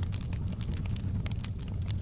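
Wood fire in a fireplace crackling: frequent small sharp pops over a steady low rumble of the flames.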